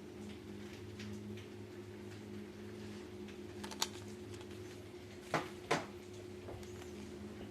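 Steady low electrical hum with a few light clicks, and two sharper clicks half a second apart a little past the middle.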